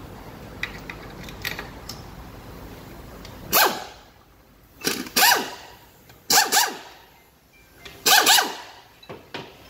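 Compressed-air blow gun fired in several short blasts, mostly in pairs, starting about three and a half seconds in, each a rush of hissing air with a whistle that bends down in pitch, blowing out a transmission valve body and its harness. Faint clicks come before the first blast.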